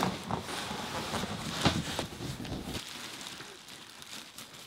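Large cardboard speaker carton being handled and a plastic-wrapped tower speaker in foam end caps slid out of it: cardboard scraping and rustling with knocks, the loudest a single thump just under two seconds in. The handling noise drops off after about three seconds.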